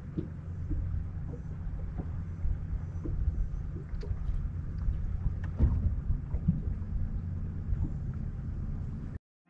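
Low, steady rumble and hum of a bass boat on the water, with scattered light ticks and knocks; it cuts off abruptly near the end.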